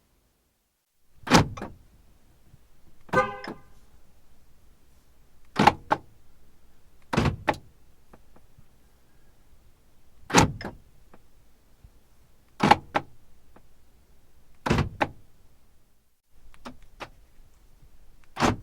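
Car central door locks clunking shut and open again and again, each a sharp double click, about every two seconds. About three seconds in, a short horn chirp sounds with one of the locks.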